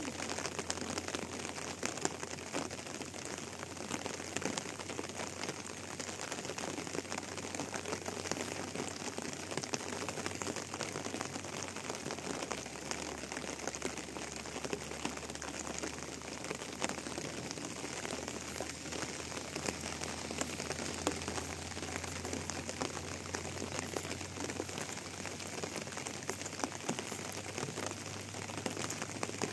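Steady rain falling, a dense patter of many small drops hitting a surface.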